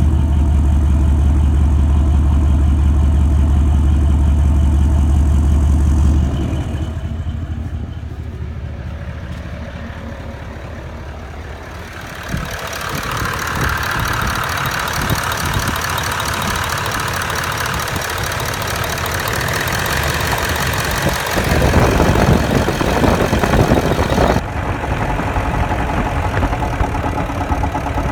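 Toyota Land Cruiser VDJ76's 4.5-litre V8 turbo-diesel (1VD-FTV) running at idle with a knocking noise whose cause the owner doesn't know. The sound shifts in loudness and tone several times: a strong low hum for the first six seconds, quieter after that, then louder and brighter from about twelve seconds in.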